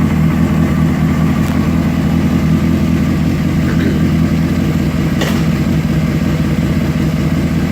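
A 2003 Honda CBR600RR's inline-four engine idling steadily in neutral.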